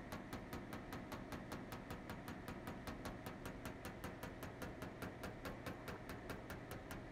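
Bernzomatic MAPP gas torch burning as it heats a brazed seam on an aluminum hull, a steady hiss with a low hum and a rapid, even ticking about six or seven times a second.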